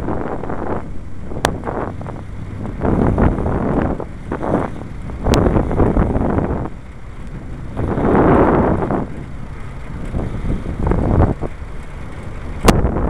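Wind buffeting the microphone of a camera moving along a path, in uneven gusts over a low rumble, with three sharp clicks.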